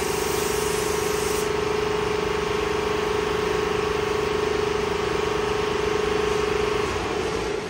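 An air spray gun hisses as tint is sprayed onto the tail lights, then stops sharply about a second and a half in. Under it a shop air compressor runs with a steady hum and noise, and it cuts off near the end.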